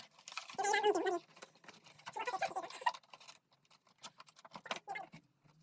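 Two short pitched, voice-like sounds, each under a second, the first about half a second in and the second about two seconds in. Between them and after them come scattered light clicks and taps from handling the keyboard's cable and parts.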